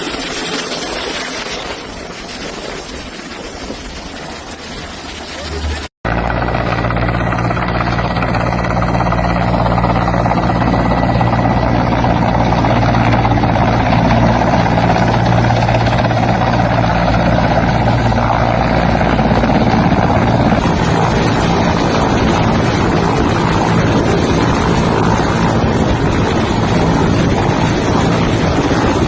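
Loud, steady engine drone with a rush of noise, starting abruptly after a cut about six seconds in.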